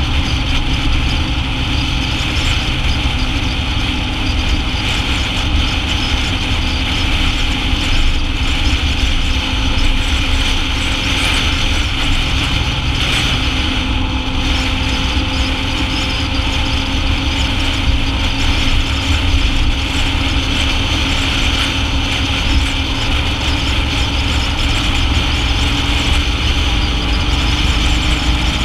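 BMW motorcycle riding at road speed: steady wind buffeting on the bike-mounted camera's microphone over the engine's running note, which rises slowly in pitch in the second half.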